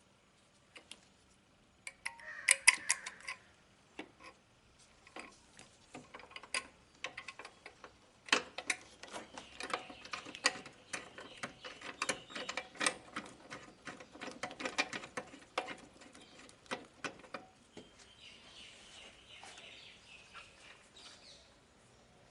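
Metal clicking and clinking of a wrench working a car horn's mounting bolt. The clicks come irregularly and grow dense and quick for several seconds in the middle.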